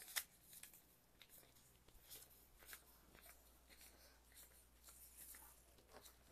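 Near silence: faint room tone with a few scattered soft ticks and rustles.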